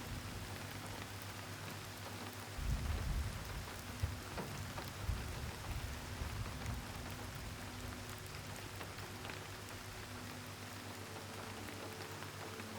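Steady rain falling, an even hiss of many drops, with low rumbles swelling a few seconds in and again in the middle.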